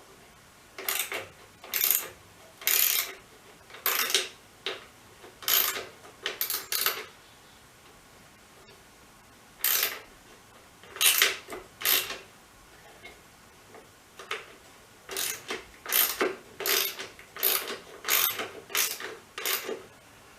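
Ratchet wrench clicking in short back-and-forth strokes as a bolt is worked loose. The strokes come in groups with two pauses, then a quicker, steady run near the end.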